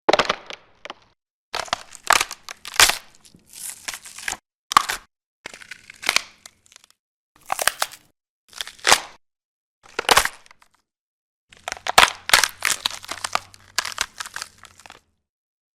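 Stock gore sound effects played one after another: about ten short crunching and cracking hits separated by brief silences, the last a longer run of repeated crunches lasting a few seconds.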